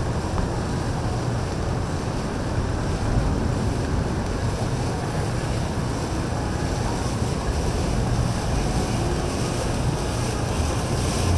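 Steady wind noise buffeting the microphone over the low rumble of boat motors and waves.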